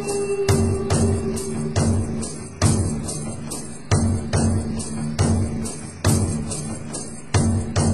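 Background music with a steady beat: quick, evenly spaced percussion hits over a pulsing bass, and a held note that fades out about two seconds in.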